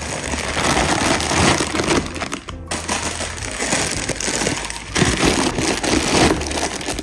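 Loud crinkling, rattling handling noise with short breaks about two and a half and five seconds in, over background music.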